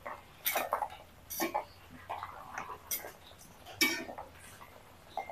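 A utensil knocking and clinking against a small metal kadai as puris frying in hot oil are turned over: a handful of sharp separate knocks, the loudest nearly four seconds in.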